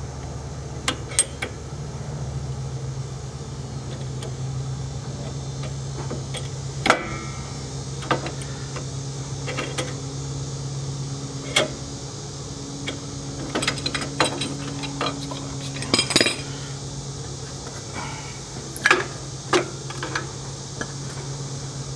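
Irregular metallic clinks and clicks as a C-clamp and rear brake caliper parts are handled, busiest in the second half, over a steady low hum.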